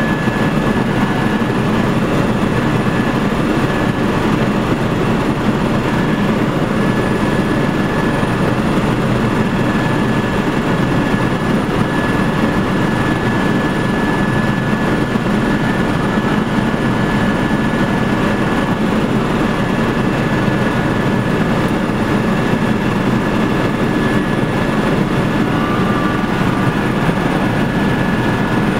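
Steady engine and rotor noise of a small helicopter heard from inside its cabin, with a thin steady high whine running through it.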